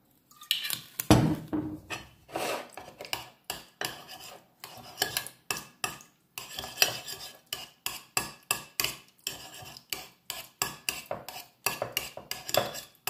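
Metal spoon stirring and mashing jam in a dish, clinking and scraping against it in quick, uneven strokes, with one louder knock about a second in. The jam is being loosened with orange blossom water.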